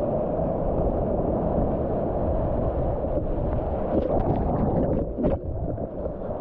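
Steady rush of river water around a kayak, with a cluster of short splashes about four to five seconds in.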